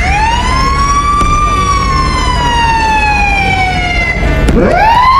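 A siren-like wail: one tone sweeps up, glides slowly down over about four seconds, then sweeps up again near the end, over a steady low rumble.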